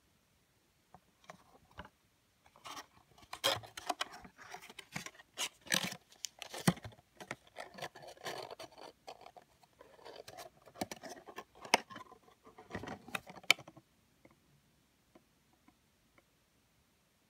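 Tarot cards and their cardboard tuck box being handled: the box opened and the deck slid out. Irregular scraping and rustling of card stock with scattered clicks and a few sharp snaps.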